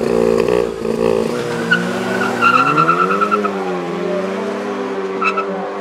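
Volkswagen Golf Mk7 R's 2.0-litre turbocharged four-cylinder and a second car launching side by side from a drag-strip start line: engines held at high revs, then pulling away with tyres squealing briefly about two seconds in. The engine note rises, dips at a gear change and carries on as the cars draw away.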